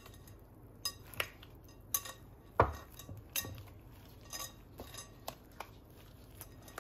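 Irregular light clinks and knocks of a mixing bowl and utensils as a cream cheese filling is worked by gloved hands, the loudest knock about two and a half seconds in.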